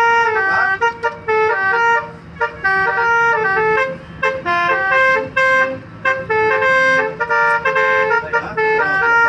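Tour bus's basuri telolet horn playing a tune: a run of short and held notes, several pitches sounding together, stepping up and down, with brief breaks between phrases.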